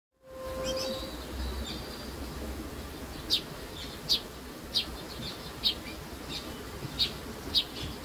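House sparrow chirping: short single chirps repeated about every three-quarters of a second, starting a few seconds in, over a low background rumble.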